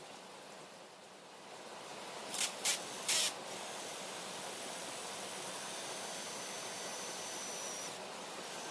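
Three short, sharp bursts of spraying hiss in quick succession, then a steady hiss with a faint high whistle that cuts off near the end.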